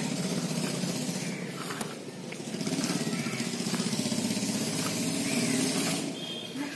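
A motor running steadily: a low, even drone that dips briefly about two seconds in and then picks up again.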